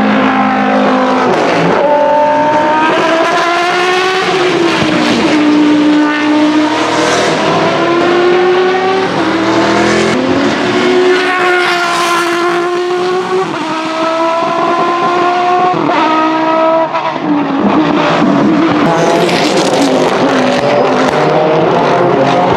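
Judd GV4 4.0-litre V10 of a 2001 Dallara SP1 racing prototype at race pace, revving hard through several gear changes, its pitch climbing and then dropping again and again as it passes and pulls away.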